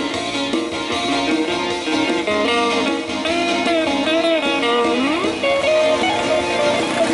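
Electric guitar playing an instrumental melody between sung verses, with notes bent up and down and a rising slide about five seconds in.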